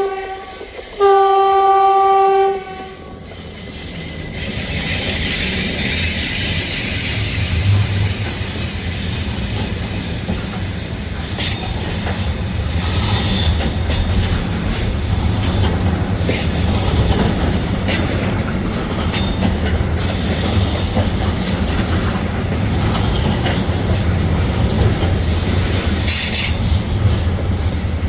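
Train horn sounds a brief note and then a longer single-pitched blast about a second in. A train then passes, a steady loud rumble of wheels on rail with occasional clicks over the rail joints, building from about four seconds in.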